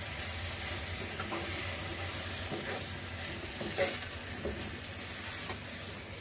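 Onion-tomato masala sizzling in a metal kadai on a gas flame while a steel spoon stirs it, with soft scrapes of the spoon against the pan every second or so. The stirring is kept up to stop the masala sticking to the bottom.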